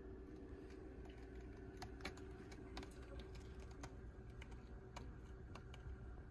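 Scattered light clicks and taps from kittens' claws and paws as they scramble and play in their cage, over a faint steady hum.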